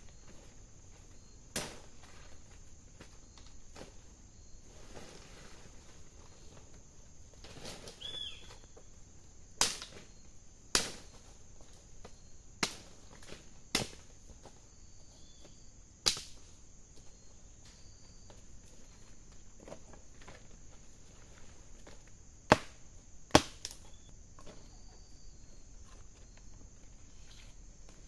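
Steady chirring of crickets or other insects, with about eight sharp knocks or clicks at irregular intervals, two of the loudest close together near the end.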